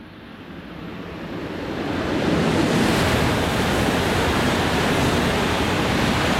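Hayabusa/Super Komachi Shinkansen (E5 and E6 series coupled) passing through the station at high speed without stopping: a rush of air and wheel noise that builds for about two seconds, then holds loud and steady.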